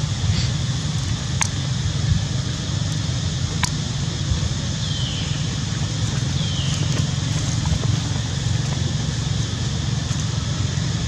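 Steady outdoor background rumble and hiss, with two short high chirps falling in pitch about five and six and a half seconds in.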